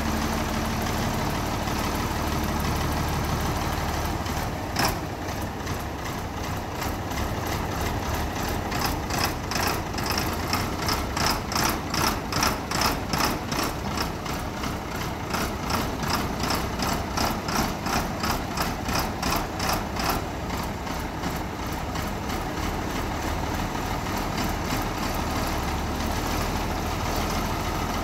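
Ford TW-30 tractor's turbocharged six-cylinder diesel idling. There is a sharp click about five seconds in, and after it a rhythmic clatter, a few beats a second, pulses over the engine until about twenty seconds in.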